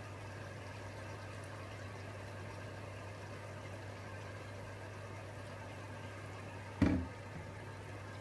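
Pork liver and vegetable stir fry sizzling steadily in a frying pan over a constant low hum, with one sharp knock about seven seconds in.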